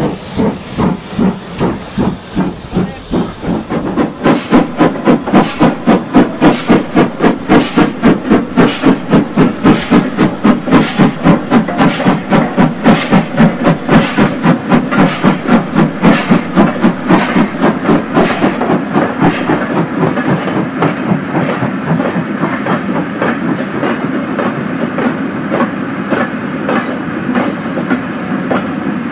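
Steam locomotive chuffing from a Hornby BR Standard Class 2MT model hauling a long goods train. A hiss stops about four seconds in and the beats quicken to about four a second. From about two-thirds of the way through the beats grow fainter and blend into a steady clatter of wagon wheels on the track.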